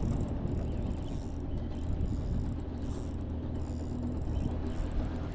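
Fishing reel being cranked with a rasping, ratchety mechanical sound as a fish is reeled in, over a steady low hum.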